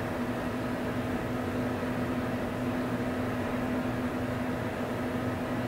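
Steady background hum with an even hiss, unchanging throughout.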